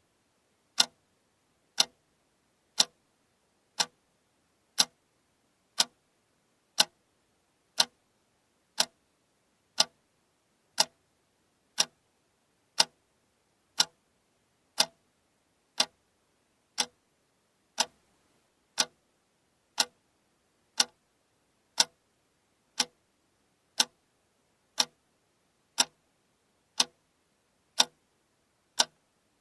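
Alarm clock ticking steadily, one sharp tick each second.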